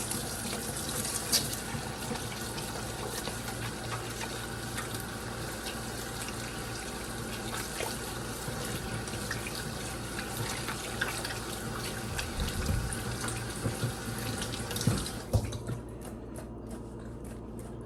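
Tap water running into a sink while hands are washed under it, with small splashes. The tap is turned off near the end, followed by a few light knocks.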